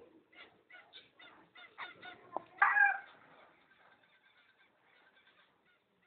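Cockatiels calling: a run of short chirps, then one loud, harsh squawk a little under three seconds in, followed by fainter chirping.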